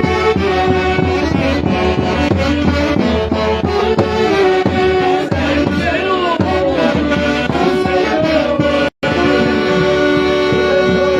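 Live music from a Peruvian orchestra playing Santiago music: a dense band with held melody notes over a steady beat. The sound cuts out for an instant about nine seconds in, then the music resumes.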